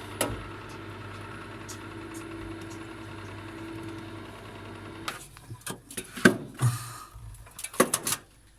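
Profilo No Frost refrigerator's freezer fan running with a steady, engine-like hum, which the owner blames on a faulty fan in a freezer section heavily iced up. About five seconds in the hum stops, and several knocks and clatters follow.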